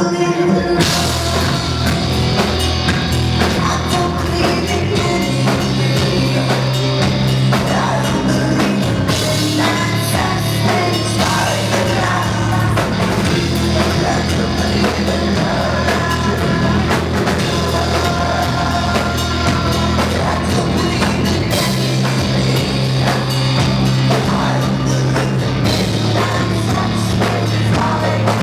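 Rock band playing live and loud, with a drum kit and singing over heavy bass notes that shift a couple of times.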